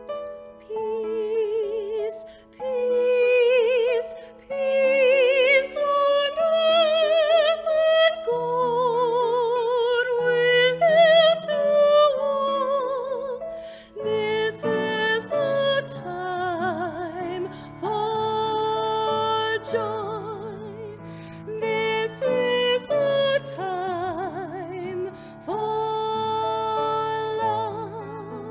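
A high voice singing a slow, gentle melody with wide vibrato over piano accompaniment; about halfway in, further voices and lower held notes join in harmony.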